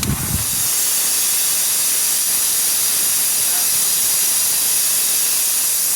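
A steady, high-pitched hiss that sets in abruptly at the start and holds even throughout.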